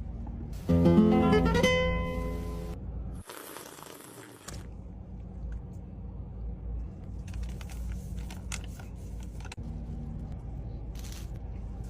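A short plucked-guitar music sting: a loud chord rings out about a second in and fades over about two seconds. It is followed by a brief burst of hiss and a few scattered faint clicks.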